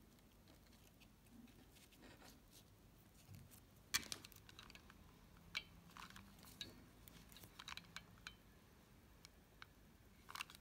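Faint clicks and rustles of hands handling a satin-ribbon-wrapped headband, pins and ribbon flowers while gluing, with a sharper click about four seconds in and a small cluster of clicks near the end as a hot glue gun is put to a flower.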